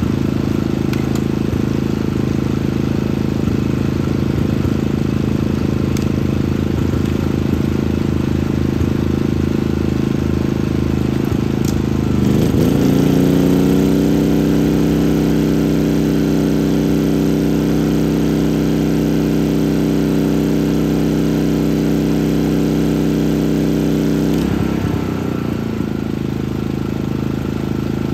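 Genmax GM3500iAED dual-fuel inverter generator engine running at a steady low speed. About twelve seconds in it speeds up to a higher steady pitch as an 1800 W heat gun load comes on, then drops back to its lower speed near the end as the load comes off.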